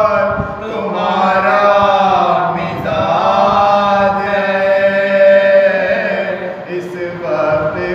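A man's voice chanting a mourning elegy in long, held, wavering notes, over a steady low tone.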